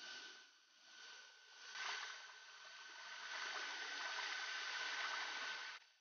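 Outdoor ambience of a stream's running water: a steady hiss that swells twice and then holds even, with a thin steady high tone through it. It cuts off suddenly near the end.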